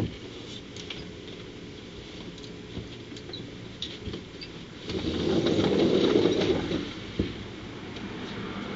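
A low rumble that swells and fades for about two seconds just past the middle, over a steady low background hum, with a few faint clicks.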